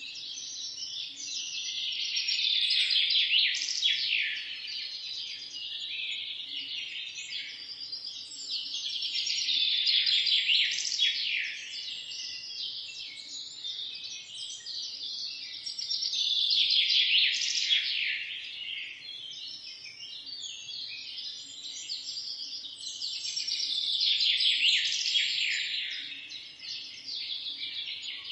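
Dense chorus of many small birds chirping and twittering in rapid overlapping calls, swelling louder and fading back about every seven seconds.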